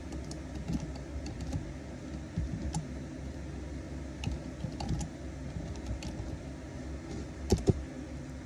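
Light, irregular clicks of typing on a computer keyboard, with a louder pair of knocks near the end, over a low steady hum.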